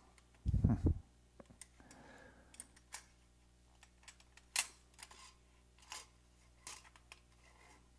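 Faint scattered metal clicks and handling noise as the action sleeve of a Fabarm XLR5 semi-automatic shotgun is slid along its magazine tube, with one dull thump about half a second in.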